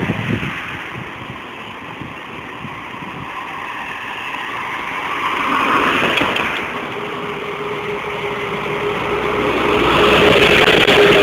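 Ikarus 280 articulated city bus's diesel engine approaching and passing close by, growing louder toward the end with a steady whine over the engine noise. Traffic noise swells briefly about six seconds in.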